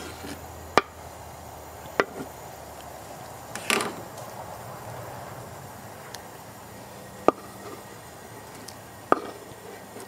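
A metal spoon knocking against a stainless steel bush pot and the wooden cutting board as chunks of corned beef are raked into a stew and stirred: a few sharp single knocks, with a longer scraping clatter about four seconds in.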